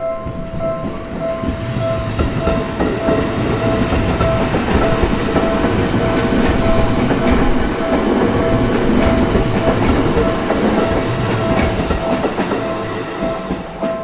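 Seibu Sayama Line electric train passing over a Japanese level crossing, its wheels clacking over the rail joints. The noise swells to its loudest around the middle and fades near the end. Throughout, the crossing's electronic warning bell keeps up its steady, repeating ding.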